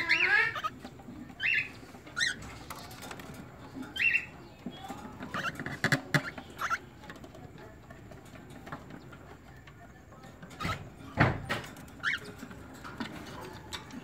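Caged parrots giving short chirps and calls a few seconds apart, most of them in the first half, over scattered light clicks, with one louder knock about eleven seconds in.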